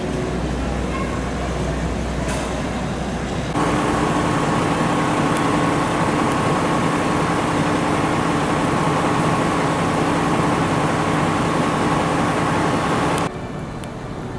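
Steady vehicle running noise. About three and a half seconds in it jumps abruptly louder, to a steady hum with two held tones, then drops back abruptly about a second before the end.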